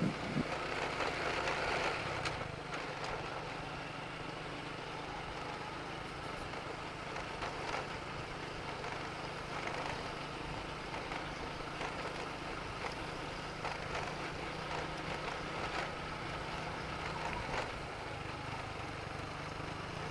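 Motorcycle engine running steadily while riding at an even speed, with wind and road noise.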